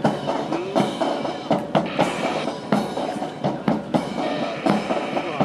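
Music with drums: a march-style backing track with sharp drum hits over sustained tones, playing for the drill team's routine.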